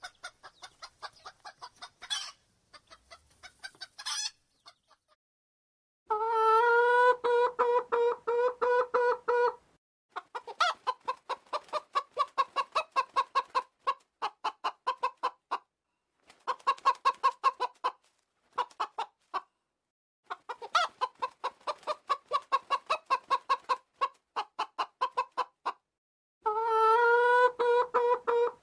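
Domestic chicken clucking in fast runs of sharp, pitched clucks, in several bouts of a few seconds each with short pauses between them.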